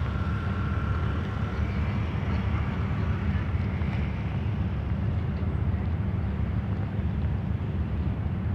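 Passenger cruise boat's engine running at its berth, a steady low rumble, with faint voices in the background.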